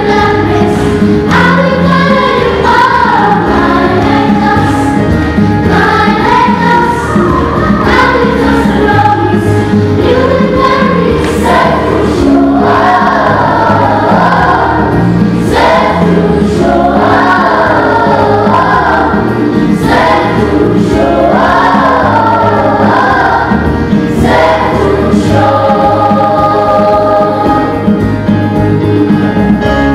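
Children's choir singing a lively song, settling into long held notes near the end.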